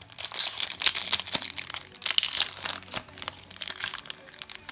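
Foil wrapper of a Yu-Gi-Oh! booster pack crinkling as it is handled and opened, a dense run of crackling rustles.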